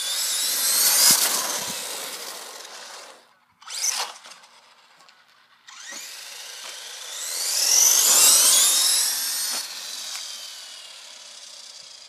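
Traxxas E-Revo RC monster truck's brushless electric motor whining as it accelerates hard in bursts, the pitch rising with speed. One run comes at the start, a short blip about four seconds in, and a longer run from about six seconds in that peaks and then fades as the truck drives away.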